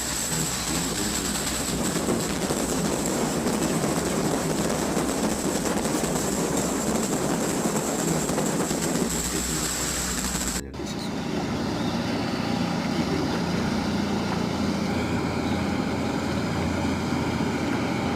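Steady engine drone of a fast passenger jet boat under way. About ten and a half seconds in the sound drops out for an instant at a cut, then the drone carries on with a steadier hum.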